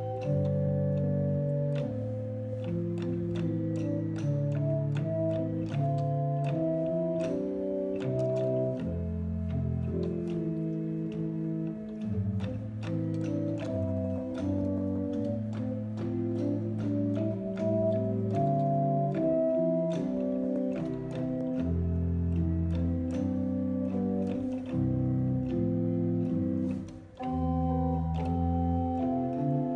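Church organ played solo: slow, steady chords of held notes over a low bass line, with a short break near the end.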